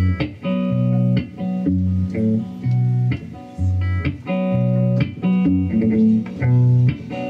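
Solo electric guitar playing an instrumental intro: picked chords over low bass notes in a steady pulse, about two a second.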